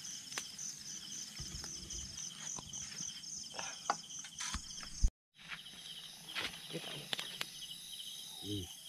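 Crickets chirping in a steady, pulsing high trill, with scattered light clicks and knocks. The sound cuts out completely for a moment about five seconds in.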